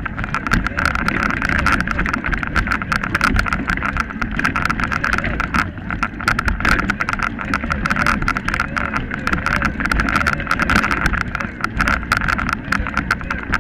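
Mountain bike rolling over a rough, stony forest track: a steady rumble with a dense rattle of quick clicks and knocks from the bike and its mounted camera jolting over the ground.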